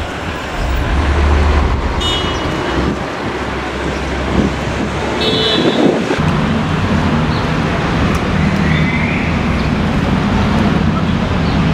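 City street traffic: a steady rumble of passing cars and trucks, with a vehicle's engine hum coming in about six seconds in. Two short high-pitched sounds cut through, about two seconds in and again about five seconds in.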